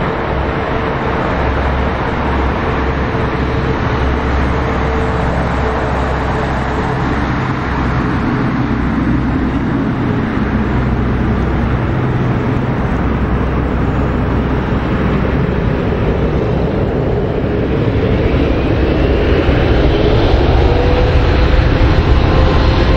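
Boeing 777-300ER's GE90 turbofans running as the airliner taxis close by: a loud, steady rush with a low hum and a steady whine. Over the last few seconds it grows louder and several whines rise in pitch as the engines spool up.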